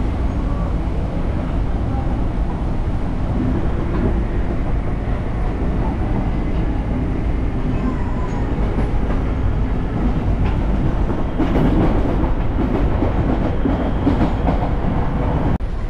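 Train running, a steady low rumble with faint scattered clicks of the wheels on the rails.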